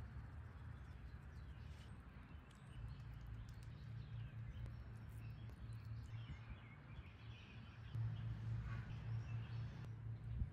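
Faint outdoor ambience: a steady low hum with a few scattered bird chirps.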